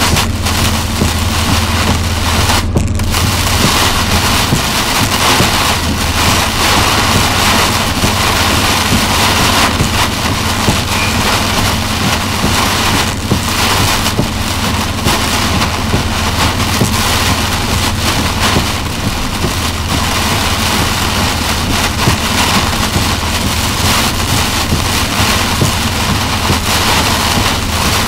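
Heavy rain drumming on the windshield and roof of a moving vehicle, heard from inside the cab, a loud steady wash over the vehicle's low engine and road hum.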